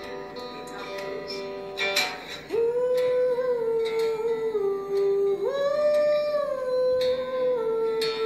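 A woman humming a wordless melody over acoustic guitar, played back through a tablet's speaker. The humming comes in about two and a half seconds in as two long held notes, each stepping down in pitch, the second starting a little higher.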